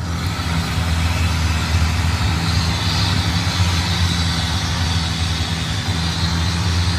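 Long-tail boat engine running steadily at cruising speed, with the rush of water and wind along the hull.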